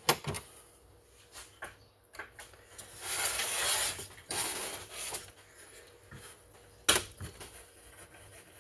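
Knocks, clicks and scraping of a chainsaw body being turned over and worked on with a screwdriver on a workbench. A sharp knock comes just at the start, a few small clicks follow, then about a second of scraping and rubbing, and another sharp knock near the end.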